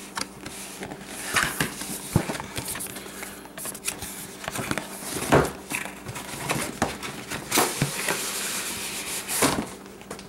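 Cardboard graphics-card box being handled and opened by hand: scattered knocks, scrapes and rustles, with a longer sliding, rustling stretch near the end.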